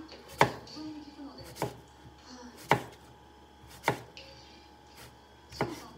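Kitchen knife slicing a cucumber on a cutting board: five slow, separate cuts, each ending in a sharp tap of the blade on the board, about one a second.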